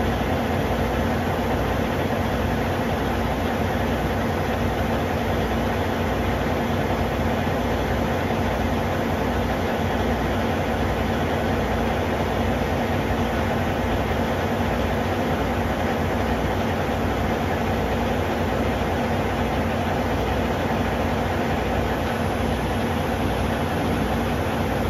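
Semi truck's diesel engine idling steadily, with an even low pulse and no change in speed.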